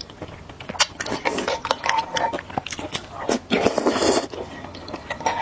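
Noodle eating: wet slurping and chewing with scattered sharp clicks, and a longer slurp about three and a half seconds in.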